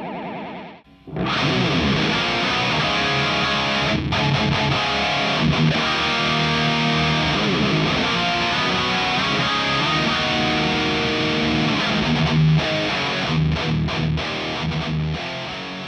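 Heavily distorted electric guitar riffs played through a Revv Generator MK III tube amp, miked at its cabinet, while a Kemper profile is being refined. About a second in, the tail of the Kemper's profiling test signal gives way to the guitar. The playing grows choppier, with short stops near the end.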